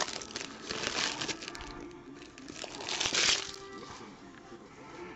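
Foil wrapper of a football trading card pack crinkling as it is torn open and handled, in a few short bursts, the loudest about three seconds in.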